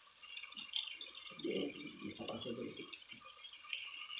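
Thin beef slices simmering in soy sauce in a wok, with a steady fine crackle of bubbling. A lower, louder rustle comes in the middle as the meat is moved around in the pan.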